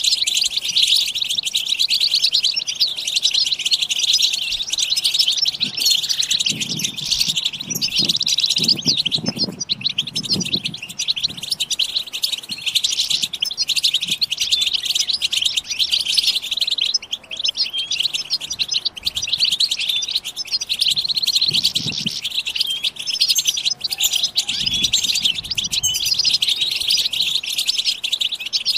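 Many European goldfinches chattering at once in a dense, unbroken high twitter: the group 'bitbita' call of female goldfinches, played to excite males into song. A few soft low thumps come in the middle and twice more later on.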